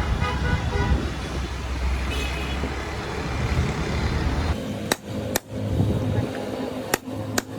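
Road traffic rumbling for the first few seconds. After an abrupt cut come four sharp knocks, in two pairs about half a second apart, over a low steady hum.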